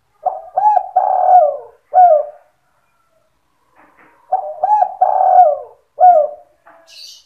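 Spotted dove (tekukur) cooing the 'sandung kuk 2' lure song: two matching phrases a few seconds apart, each of two short rising coos, a long drawn-out middle coo and a short final coo. A brief high chirp comes near the end.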